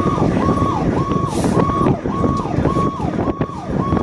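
Fire tanker's electronic siren on a fast yelp, sweeping up and down about twice a second, over the engine and road noise of the truck under way. A short hiss cuts in briefly about a second and a half in.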